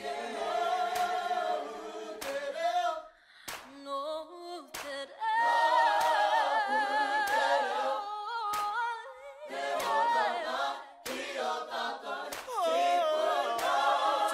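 A cappella vocal music: several voices singing in harmony with no instruments, with a short sharp click marking the beat about once a second.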